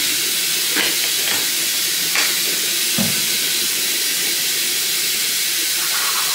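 Bathroom sink tap running: a steady hiss of water, with a few soft knocks in the first few seconds.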